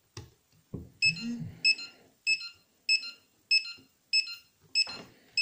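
RC transmitter beeping while it pairs with the model car's receiver: short high beeps repeating evenly, about one every 0.6 s, starting about a second in after a couple of soft handling clicks.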